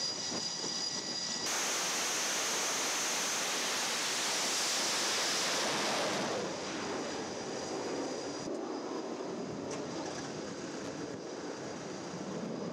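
Jet aircraft noise on a carrier flight deck: a high turbine whine that cuts off suddenly about a second and a half in, giving way to a loud, steady rush of jet and wind noise that eases off about halfway through.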